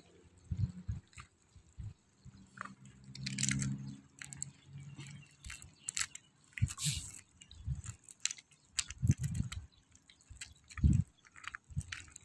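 Faint, irregular clicks and crunching crackles, with a low rumble for a second or two a few seconds in.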